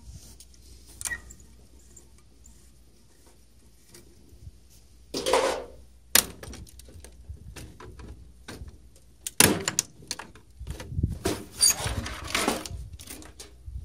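Clicks, knocks and scraping of parts being pulled out and handled while a CRT television is stripped, with a longer scrape about five seconds in and a run of clattering knocks near the end.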